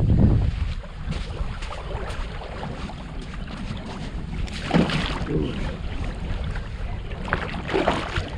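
Wind rumbling on the microphone out on the water, loudest right at the start, with two short noises about five and eight seconds in.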